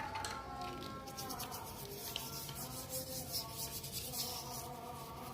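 An engine block being scrubbed by hand to clean off grime and rust: a run of slow, irregular rubbing strokes on the metal surface.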